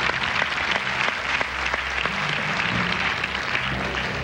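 Studio audience applauding steadily, greeting a correct answer on a TV game show.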